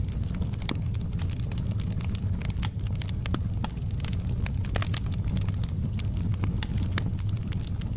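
Wood fire burning with frequent irregular crackles and pops over a steady low rumble of the flames.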